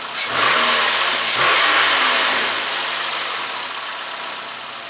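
2008 Nissan Altima engine revved twice in quick succession, about a second apart, then settling back to a steady idle. It runs smoothly now that the stray spark plug boot that was causing random multiple-cylinder misfires (P0300) has been removed.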